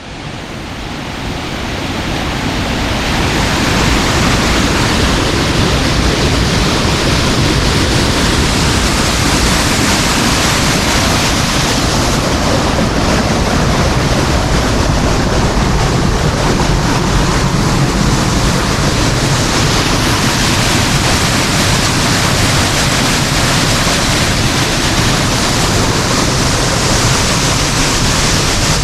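Waterfall: a loud, steady rush of falling water, fading in over the first few seconds.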